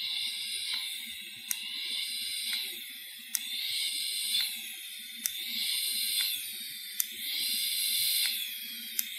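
Hissing sizzle of oil concentrate vaporizing on a vaporizer pen's hot coil as air is drawn through it, swelling and fading in waves, with a sharp click about every two seconds as the battery button is pulsed.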